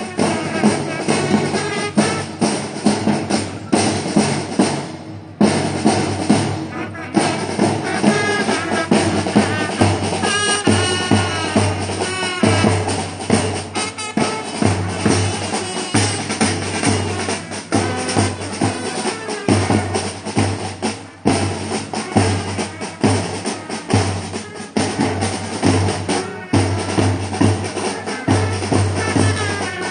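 School marching band playing: bass drums and snare drums beat a steady marching rhythm throughout, with some pitched notes over the drumming about a third of the way in.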